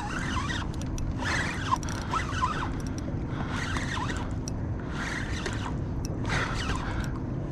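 Fishing reel being cranked to bring in a hooked striped bass, its gearing clicking and whirring in repeated bursts about once a second over a steady low rumble.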